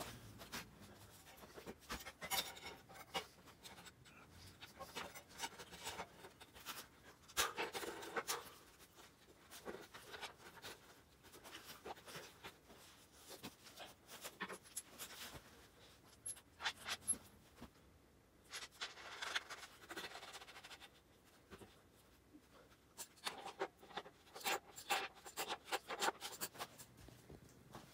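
Intermittent clicks, scrapes and rubbing of hand work with tools and parts on a dirt bike, with short bursts of handling noise scattered through.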